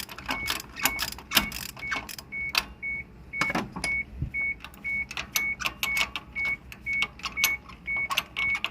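A short electronic beep repeating steadily about twice a second, with irregular metallic clicks and knocks of hand tools working on the engine.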